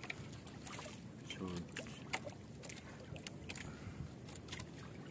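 Soft rustling and scattered light clicks of a nylon gill net being handled as a caught fish is worked free of the mesh, over a low steady background of water against a small boat. A faint voice speaks briefly about one and a half seconds in.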